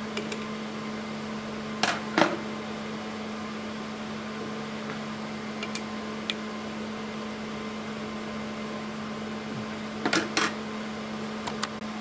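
Steady mechanical hum throughout, with a few sharp metal clicks from a steel hex key tapping and turning in the screw heads of a copper heat-sink plate: two clicks about two seconds in, a cluster about ten seconds in, and faint ticks in between. The key is the wrong tool for these Torx screws.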